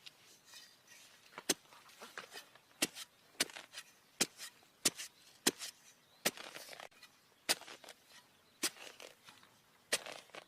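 Knife chopping into a wooden stick: a string of sharp, irregular knocks, roughly one a second.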